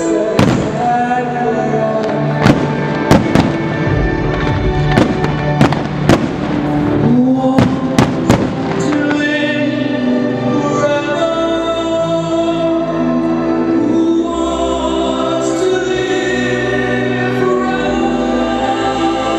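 A string of sharp firework bangs, about a dozen in the first eight seconds, as aerial shells burst. Under and after them plays choral music with long held notes, the soundtrack of a fireworks show set to music.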